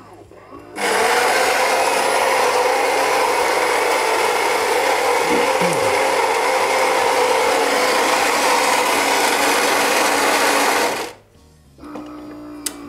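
Gaggia Magenta Milk bean-to-cup coffee machine's ceramic burr grinder grinding beans for a Caffè Crema. It starts about a second in, runs steadily for about ten seconds and stops abruptly, followed near the end by the machine's quieter steady hum.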